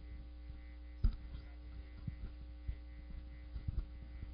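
Steady electrical mains hum in the sound system, with a few faint clicks scattered through it, the loudest about a second in.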